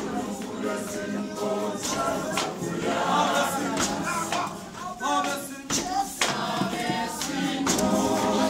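A congregation choir singing together without instruments, with a few sharp percussive knocks among the voices.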